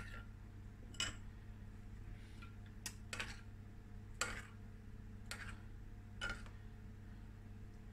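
Metal spoon stirring a thick sauce in a small bowl, ticking faintly against the bowl's side roughly once a second.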